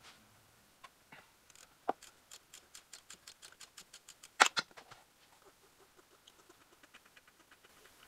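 Ratchet wrench clicking on the 12 mm top bolt of an alternator: a steady run of about five clicks a second, one louder metallic knock about halfway through, then quicker, fainter clicks.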